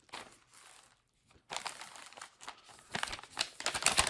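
Packaging crinkling and rustling as a box is handled and opened. It is faint at first and pauses briefly about a second in, then grows busier, with sharp crackles near the end.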